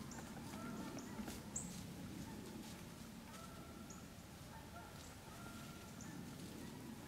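A small bird gives sharp, high chip calls about once a second. Under them is faint rustling and crunching of dry leaf litter as white-tailed does step through it.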